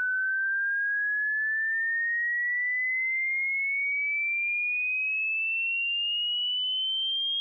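Pure sine tone from a hearing-test frequency sweep, a single clean tone rising slowly and evenly in pitch at a constant loudness.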